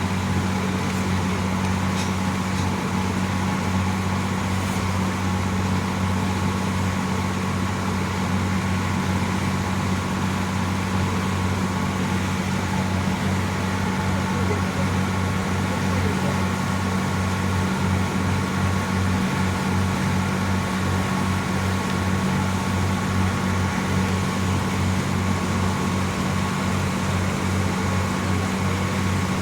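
Boat engine running steadily, a low even drone with no change in speed.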